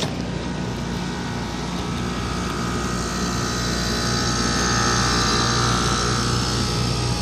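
York rooftop air-conditioning unit running while it is being charged with refrigerant: a steady compressor hum under the rush of the condenser fan. A hiss swells from about three seconds in and eases off near the end.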